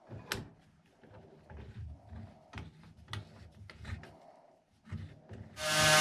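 Workshop handling: a series of light knocks and clicks as tools and workpiece are moved about, then a power tool's motor switches on near the end and runs at a steady pitch.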